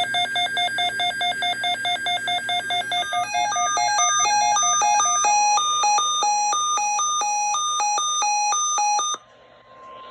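Weather radio's electronic alert alarm sounding for an incoming alert: rapid beeping at one pitch for about three seconds, then a quicker run of beeps jumping between several pitches, cutting off suddenly about nine seconds in. A faint steady tone follows near the end.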